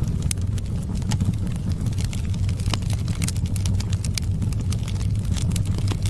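Crackling fire: irregular small sharp pops and snaps over a steady low rumble.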